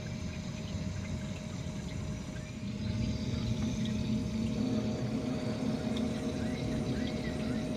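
A motor running steadily with a low hum and a faint steady whine, growing a little louder about three seconds in.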